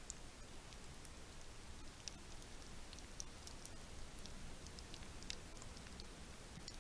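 Faint, irregular high clicks and crackles over a low hiss: red wiggler worms crawling through moist bedding in a small worm bin.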